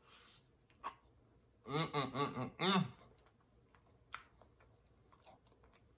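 A short wordless vocal sound from a person, a wavering voiced sound in three quick pulses about two seconds in. A few faint sharp clicks come before and after it.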